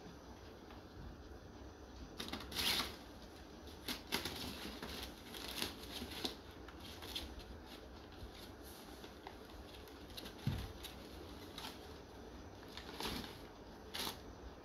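Kittens scuffling at play: irregular scratchy scrabbles and rustles of paws and claws skidding on a marble floor, with a soft thump about ten seconds in.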